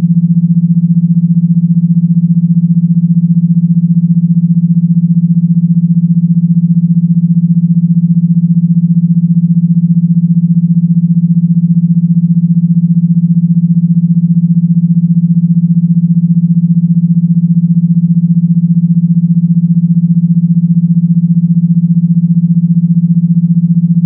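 Electronically generated vibration tone: a steady, loud, low buzz that holds unchanged, made to shake a phone speaker or headphones.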